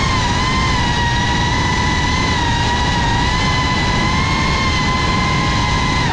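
Motors and propellers of a GEPRC Cinelog35 cinewhoop quadcopter whining at a nearly steady pitch while it cruises at even throttle, recorded close up by the GoPro riding on it, with a low rush of air noise underneath.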